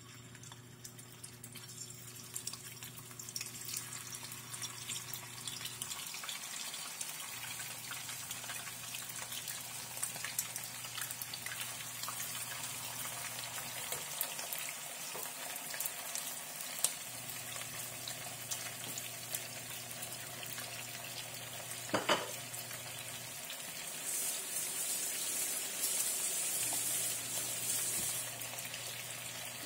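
Seasoned shrimp frying in hot oil in a frying pan, with a steady sizzle and scattered spatter pops. The sizzle builds over the first few seconds as the shrimp go into the oil and grows louder again for a few seconds near the end. A brief sharp sound comes about two-thirds of the way through.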